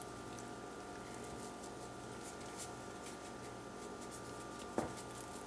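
Shaker of dry grill rub being shaken into a raw chicken, the rub falling in faint, irregular small ticks. A single sharper knock near the end.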